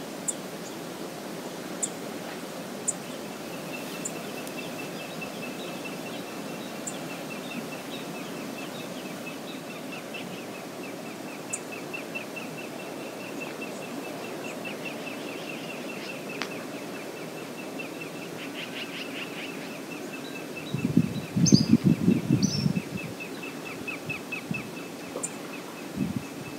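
Steady rushing outdoor ambience picked up by a riverside wildlife camera's microphone, with a faint, fast, high-pitched trill running through it and a few sharp ticks. About 21 seconds in, a loud low rumbling burst lasts about two seconds.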